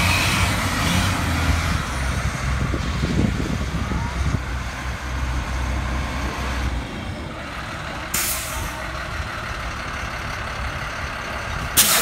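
Cat 3116 inline-six diesel of a 1998 Blue Bird GMC school bus running under way, its low rumble easing off after about seven seconds. Two short hisses of air from the air brakes follow, one about eight seconds in and a sharper one near the end as the bus stops.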